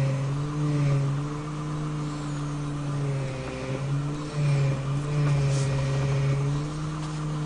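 Mitsubishi Lancer 9's hydraulic power steering rack humming: a steady low hum with higher whining tones that waver and dip in pitch and swell in level, the drone of a faulty steering rack under load.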